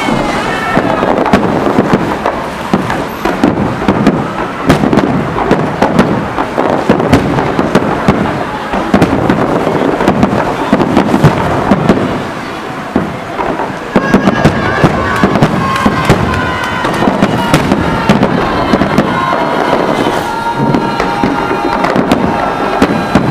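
Fireworks salute: a dense, continuous run of shells bursting and crackling, several bangs a second, easing briefly about twelve seconds in.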